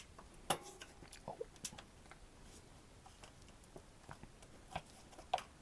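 Faint, scattered clicks and scuffs of a bicycle tyre being worked off the rim by hand, where the tyre is stuck to the rim; the sharpest click comes about half a second in.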